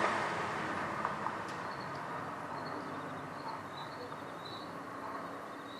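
Outdoor ambience picked up by a doorbell camera's microphone: a steady hiss that dies away in the first couple of seconds, with faint high chirps repeating from about halfway through.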